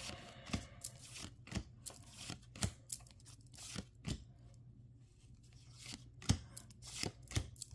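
Pokémon trading cards being flipped through in the hand, each card slid off the front of the stack to the back, making short irregular card-on-card swishes and clicks, with a lull just past the middle.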